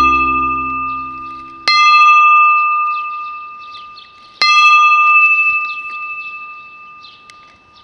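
A metal bell hanging in a wooden frame, struck twice about three seconds apart. Each strike rings on with a clear high tone that slowly fades, and the ring of an earlier strike is still dying away at the start.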